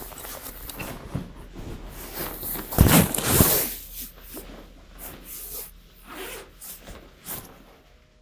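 Close rustling and handling noises, with a louder, zip-like rasping burst about three seconds in.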